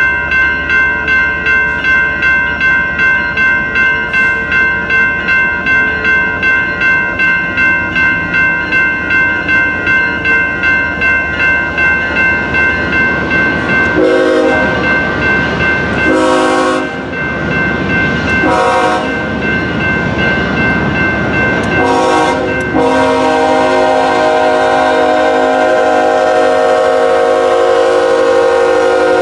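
Grade-crossing bell ringing about twice a second. About halfway through, a BNSF diesel locomotive's air horn sounds several separate blasts, then one long held blast as the train reaches the crossing, over the still-ringing bell.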